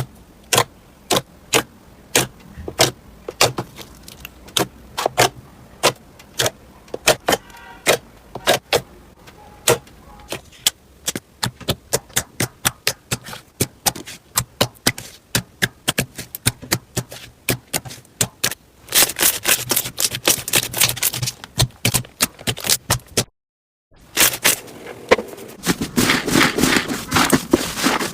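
Slime being pressed and poked by hand: a long run of sharp clicking pops, a few a second, then, after a brief cut to silence, a dense crackling crunch from crunchy slime being squeezed.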